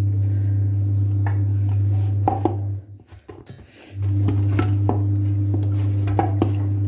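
Hands kneading wheat-flour dough in a stainless steel bowl, with scattered knocks and clinks against the bowl. Under them runs a loud, steady low hum that drops out for about a second partway through and then comes back.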